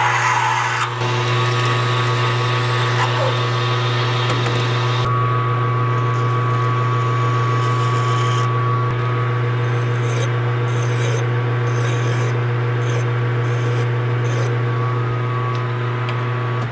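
Metal lathe running with a steady motor hum as a drill bit backs out of the spinning workpiece, followed by a hand tool scraping against the turning part. The lathe shuts off near the end and the hum stops abruptly.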